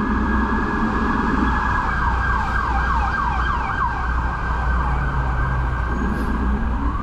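Emergency vehicle siren sounding through city street traffic, switching to a fast repeating yelp for about two seconds midway, over the low rumble of traffic.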